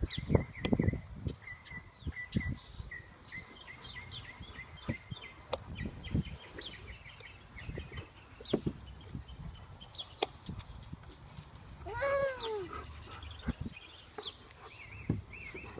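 Dog whining once, a short cry falling in pitch about twelve seconds in, with small birds chirping in the background and scattered soft low knocks.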